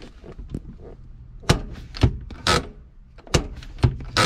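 Handbrake lever and grip being worked by hand, giving sharp clunks and clicks in two groups of three, about two seconds apart.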